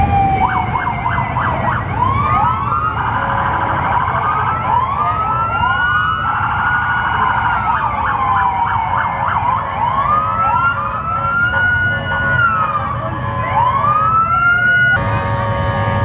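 Several emergency-vehicle sirens going at once, overlapping wails that sweep up and down, with fast yelping passages near the start and around the middle. A steady tone of several pitches starts near the end.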